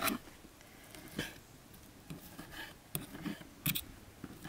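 Fork and knife scraping and tapping against a wooden cutting board in a series of short, irregular strokes while shredding cooked chicken.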